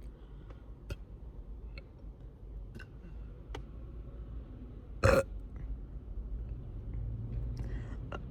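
A girl's single short, loud burp about five seconds in, brought up on command from the gas of sparkling water she has drunk.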